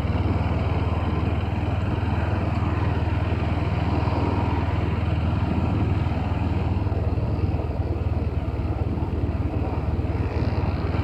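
Steady riding noise of a motorcycle underway, heard from the rider's seat: a constant low rumble with an even hiss over it.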